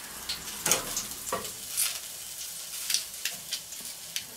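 A pork rack sizzling over a charcoal fire: a steady hiss of fat frying, broken by scattered sharp crackles and clicks every half second or so.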